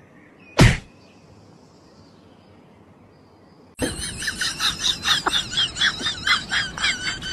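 A single sharp sound about half a second in, then from about four seconds a rapid run of high-pitched squealing sounds in quick pulses, from a comic audio clip.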